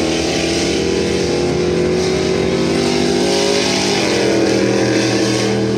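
Pickup truck engines at full throttle racing down a dirt drag strip, the engine note held high. About four seconds in the note breaks and drops in pitch, then climbs again.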